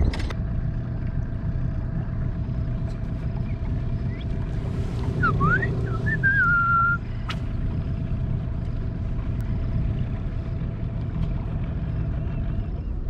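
A small boat's motor running steadily, a low rumble with a constant hum that cuts out shortly before the end. A short whistle that glides up and down about five to seven seconds in.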